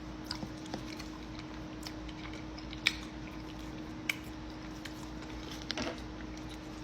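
A person chewing a mouthful of sticky fufu, with soft wet mouth clicks and smacks and two sharper clicks about three and four seconds in. A faint steady hum runs underneath.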